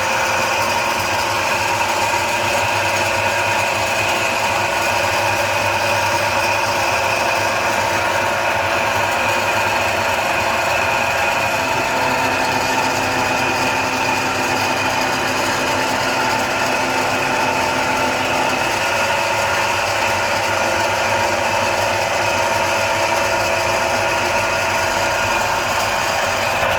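A motor-driven noodle-making machine running steadily with a constant hum of several tones. A lower note joins in for about seven seconds midway.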